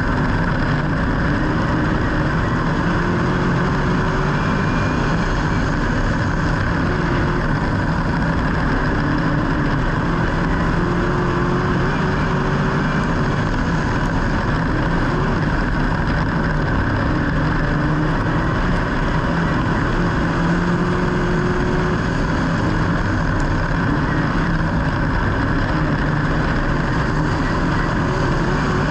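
A vehicle engine drones steadily under a constant haze of road and wind noise, its pitch wavering only slightly and never revving up or dying away.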